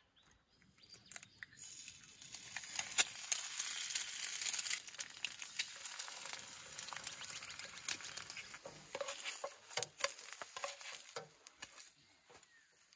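Eggs frying in a pan on a portable gas stove, a crackling sizzle that builds about two seconds in and eases off near the end, with a few light clicks from a spatula.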